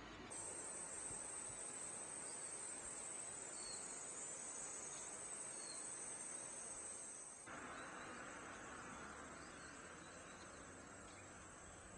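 Faint, steady, high-pitched chorus of night insects. About seven and a half seconds in the sound changes abruptly: the chorus drops and a soft hiss takes over.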